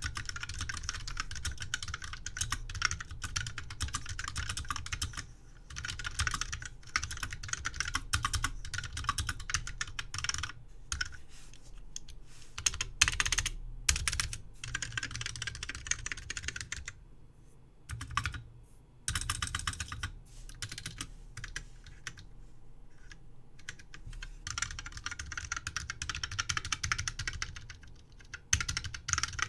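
Key switches of a Stone MS-2403 electric typewriter's keyboard module, Alps SKEW integrated dome switches with black sliders, clicking in fast runs of typing. There is a short pause a little past the middle, then a stretch of lighter, sparser keystrokes.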